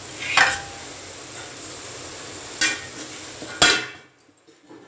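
Peas and carrots sizzling in oil in a steel kadhai, with a few metal clinks. Near the end a steel lid is set on with a loud clank and the sizzling goes muffled and much quieter.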